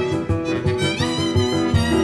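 Klezmer music: a basset horn plays the melody over a steady, rhythmic piano accompaniment with a regular low beat.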